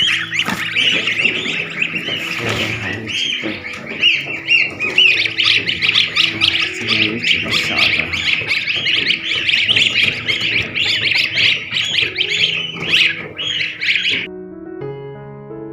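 A flock of geese calling in a dense chorus of overlapping squawks over soft background music; the calls stop suddenly about fourteen seconds in, leaving only the piano music.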